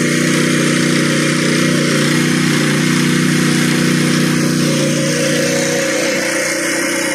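Crawler-mounted rock drill rig drilling a hole in rock, a loud, steady mechanical din with the rig's engine humming underneath.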